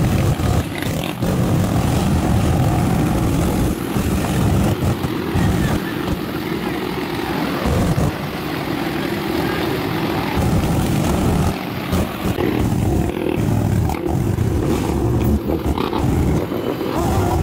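Quad bike (ATV) engines running in a group ride down a city street, recorded from a vehicle moving among them, with a dense low rumble and wind buffeting on the microphone that rise and fall.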